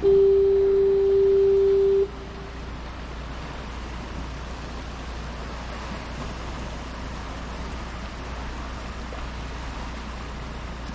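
A loud single steady tone at one pitch, horn-like, held for about two seconds and cut off sharply. After it comes a steady rush of wind and water.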